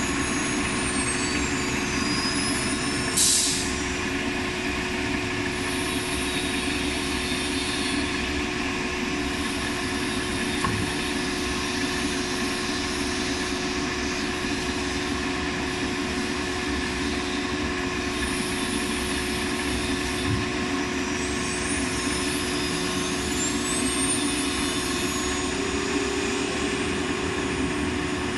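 CNC router with a 9 kW air-cooled automatic-tool-change spindle, running through a tool change over the steady hum of its vacuum table pump. The spindle's whine falls away at the start, a short hiss of air comes about three seconds in, and the whine rises again as the spindle spins back up near the end.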